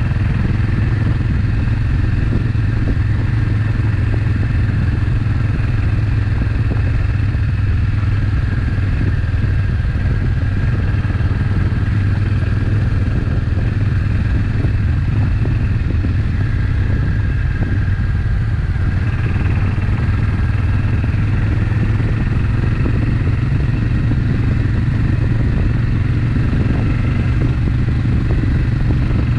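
Suzuki Intruder VS800's V-twin engine running steadily under way, a constant low drone with no revving or gear changes.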